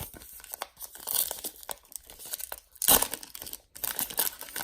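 A trading-card pack's foil wrapper being crinkled and torn open by hand, with louder crackling bursts about a second in and again around three seconds in.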